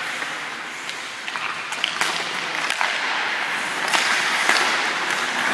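Ice skate blades scraping and carving on a rink surface, with a few sharp clicks of hockey sticks striking pucks.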